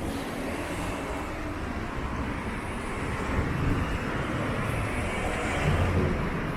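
City street traffic: steady road noise from passing cars, with a low rumble that swells now and then.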